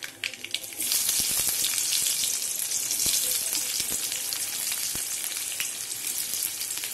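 Mustard seeds crackling in hot oil with a few sharp pops. About a second in, chopped onion goes into the oil, which breaks into loud, steady sizzling as the onion starts to fry for the tadka.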